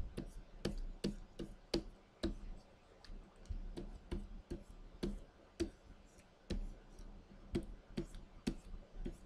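Irregular sharp clicks and taps, about two or three a second, from hands working a computer drawing setup: the pen on the drawing display and keys, over a faint low hum.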